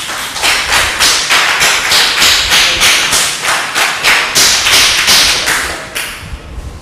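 Group of people applauding, clapping together in a steady rhythm of about three claps a second, dying away near the end.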